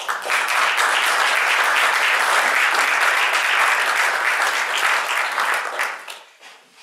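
Audience applauding steadily, dying away about six seconds in.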